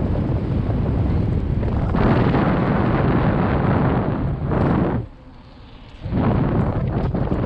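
Heavy wind buffeting the microphone of a GoPro on a moving bicycle, a loud rumble that dies away for about a second around five seconds in and then comes back.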